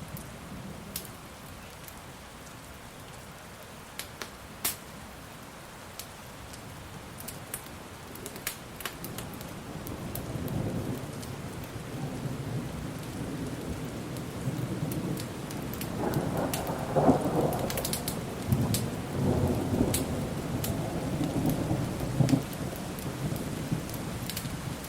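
Steady rain with scattered sharp crackles and pops from a wood fire. A rumble of thunder builds about a third of the way in, is loudest just past the middle, and rolls on toward the end.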